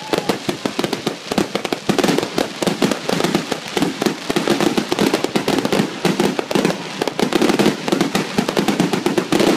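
Aerial fireworks going off in a dense, continuous barrage: rapid bangs of bursting shells mixed with crackling pops, with no let-up.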